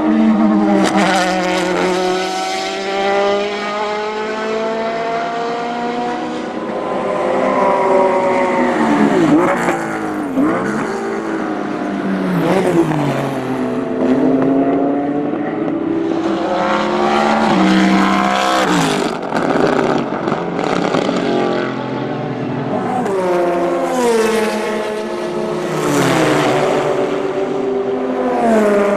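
Endurance racing cars, a Le Mans prototype and Porsche 911 GT racers, running at racing speed one after another: engine notes rising and falling repeatedly through gear changes as each car passes.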